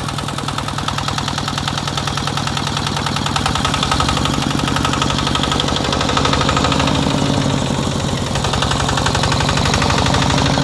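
RT125-type single-cylinder horizontal diesel engine running steadily with a fast, even knocking beat, growing somewhat louder about three to four seconds in.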